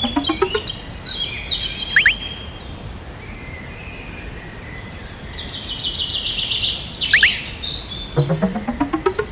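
Birds chirping and calling, with a rising run of rapid pulses near the start and again near the end.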